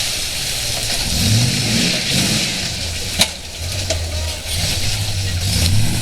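Car engine running and being revved a little, over a steady background hiss of noise, with a sharp click about three seconds in.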